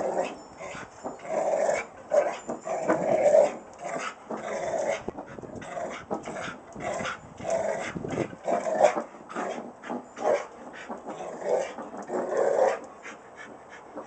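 Rottweiler vocalizing in short, irregular bursts as it plays, while it paws and pushes a rock across a concrete patio, with brief scrapes and knocks. The bursts die down shortly before the end, when the dog stands still.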